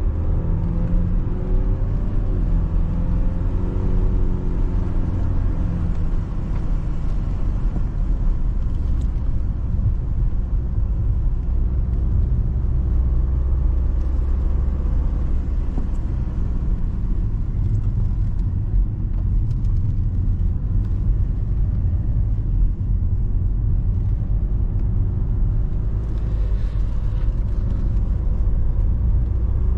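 BMW E91 320d's four-cylinder turbodiesel engine running as the car is driven, over a low road rumble. The engine note rises and falls through the first several seconds, then settles into a steady low drone.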